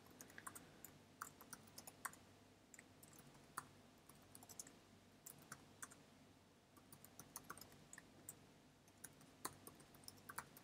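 Faint typing on a computer keyboard: irregular key clicks, with a short pause a little past halfway.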